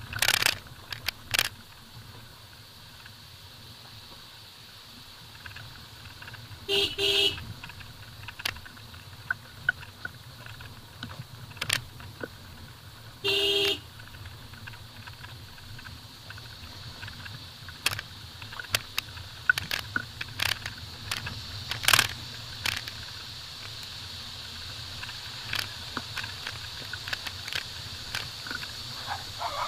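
Maruti Vitara Brezza crawling over a rough gravel mountain track: a low, steady engine hum with scattered clicks and knocks from stones and the body, and two short horn honks several seconds apart.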